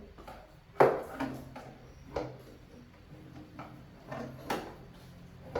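A series of short, sharp knocks and clicks, about six over a few seconds, the loudest about a second in, over a low steady hum.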